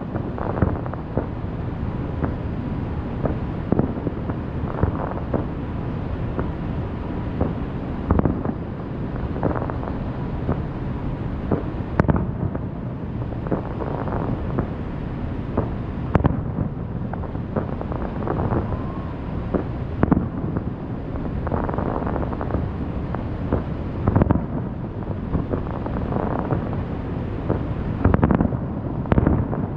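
Fireworks display: a steady low rumble of bursts with frequent irregular booms, and two sharp cracks about twelve and sixteen seconds in. Wind buffets the microphone.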